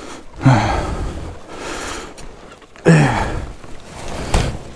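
Two short grunts of effort, each dropping in pitch and trailing into a heavy breath out, from people straining to handle a fallen motorcycle. A sharp click comes near the end.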